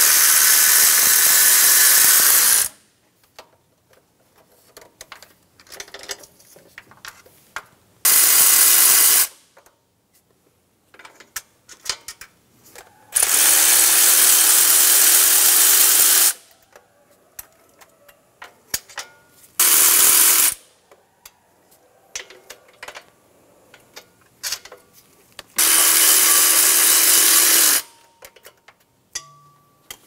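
Cordless electric ratchet running in five bursts of one to three seconds each, spinning loose the 12 mm bolts and nuts that hold the intake manifold. Light clicks and clinks come between the runs.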